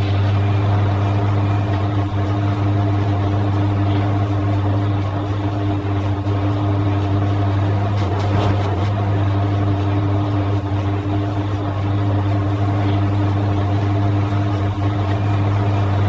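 Front-loading washing machine running on its normal 220 V supply with the drum turning: a steady low motor hum with a few fainter steady higher tones, its pitch unchanging.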